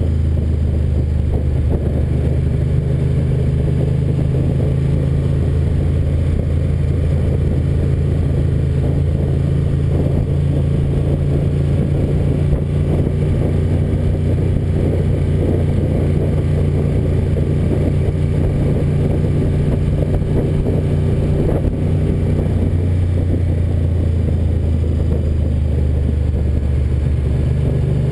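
Ducati 900FE's air-cooled L-twin engine running at a steady cruising speed, a low, even note that holds the same pitch throughout.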